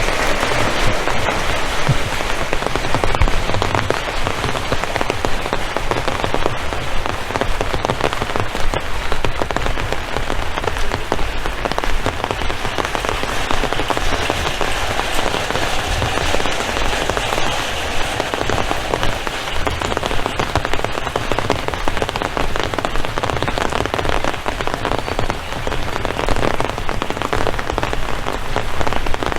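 Steady, heavy rain falling, a dense patter of drops with a low uneven rumble underneath.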